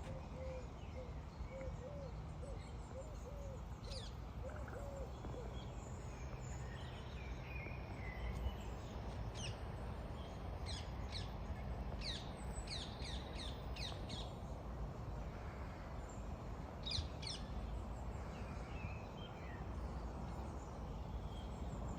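Outdoor ambience of birds calling over a steady low rush. A run of short, low, hooting notes in the first few seconds, then quick runs of sharp, high chirps in the middle and again near the end.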